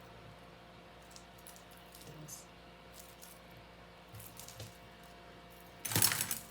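Costume jewelry and its bag being handled: faint scattered clicks and taps, then a brief, louder rustle near the end.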